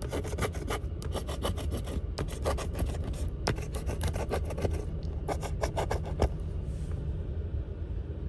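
A coin scratching the coating off a lottery scratch-off ticket: runs of quick back-and-forth scrapes with short pauses between them, thinning out near the end.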